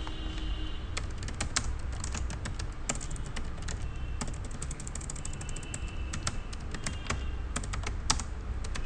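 Typing on a computer keyboard: quick runs of key clicks starting about a second in, broken by a few short pauses, over a low steady hum.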